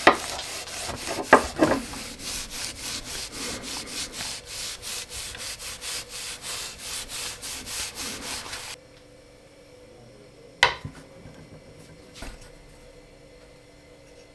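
Quick, even rubbing strokes on wood, about four or five a second, that stop suddenly about two-thirds of the way in. After that there are two single knocks.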